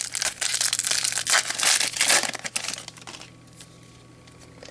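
Crinkling and rustling of a foil trading-card pack wrapper and cards being handled, for about three seconds, then much quieter.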